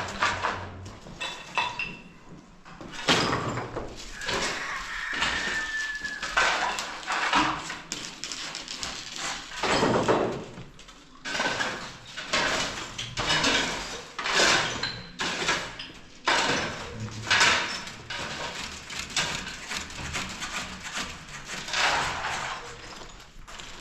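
Irregular knocking, clattering and scraping of hard objects, with a brief squeak about five seconds in.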